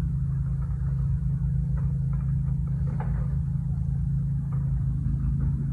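A steady low hum, like a motor or wind rumble, holding level throughout.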